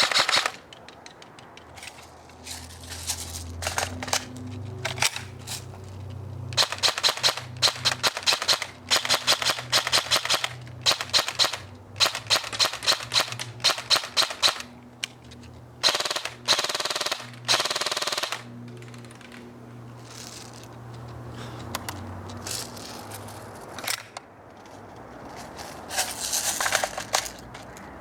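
An airsoft electric rifle firing full-auto in several bursts of rapid, evenly spaced shots, each burst one to four seconds long with pauses between. Background music with a steady low tone plays underneath.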